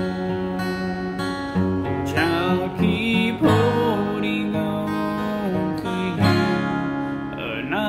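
Acoustic guitar chords strummed and left to ring, with a man's singing voice coming in over them in phrases.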